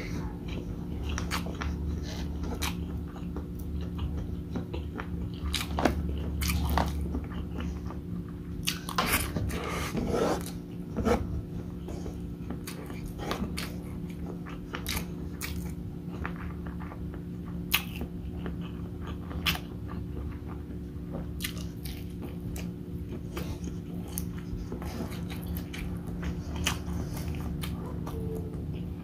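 Close-miked chewing and mouth sounds of a man eating rice and beef bopis by hand, with irregular clicks and smacks, over a steady low hum.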